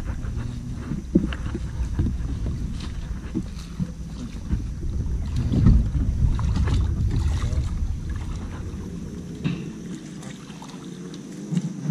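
Wading and splashing in shallow water beside a plastic pedal fishing kayak, with scattered knocks on the hull and wind buffeting the microphone; the rumble eases from about nine seconds in.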